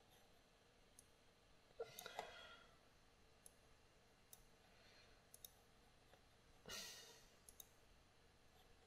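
Near silence: room tone with a few faint, scattered clicks, from a computer mouse working the retouch brush, and a soft breath about seven seconds in.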